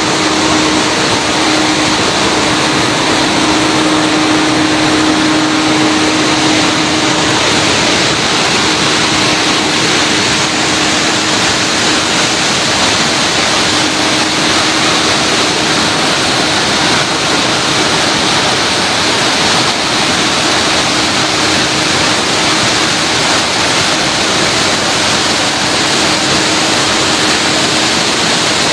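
Steady, loud rushing noise that does not change, with a faint steady low hum in it.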